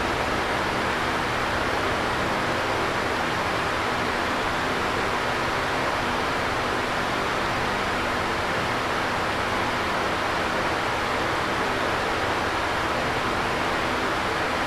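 Electric fan running, a steady whooshing rush of moving air with a faint low hum underneath.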